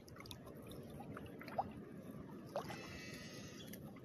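Shallow estuary water sloshing and trickling around people wading knee-deep and handling a cast net, with two short sharp sounds about a second apart near the middle.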